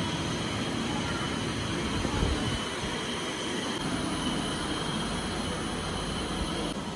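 Steady mechanical hum with a low rumble and a thin, constant high whine, which stops shortly before the end.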